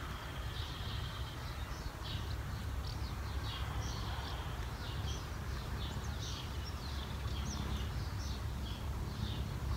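Small birds chirping repeatedly in short, irregular notes, over a steady low rumble like wind on the microphone.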